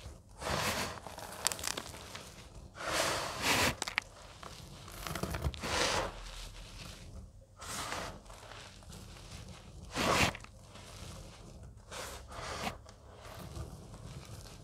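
Hands crushing and crumbling dry, dyed cornstarch chunks and letting the crumbs fall back onto the heap. The sound is a series of soft crunching, crackling bursts every couple of seconds, the loudest about ten seconds in.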